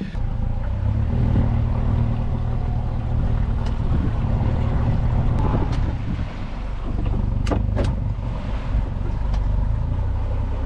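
Boat's Honda outboard motor running steadily with a low rumble, with a couple of brief clicks about two thirds of the way through.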